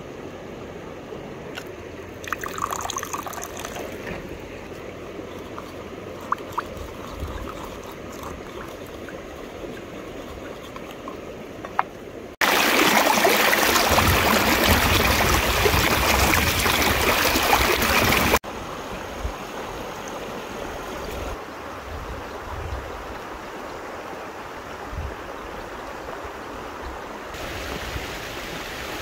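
Flowing stream water, with a few light clicks and knocks over it. For about six seconds in the middle, a much louder rushing, hissing noise starts and stops abruptly.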